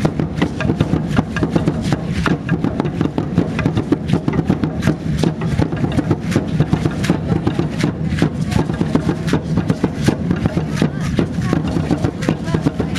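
Aztec dance drumming with the dancers' seed-pod ankle rattles (ayoyotes) clattering at each stamp, a dense, rapid rattle over a steady low drone.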